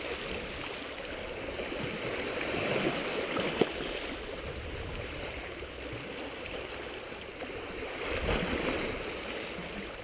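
Small sea waves lapping and washing over rocks at the water's edge, a steady rushing wash that swells briefly near the end, with one sharp click about three and a half seconds in.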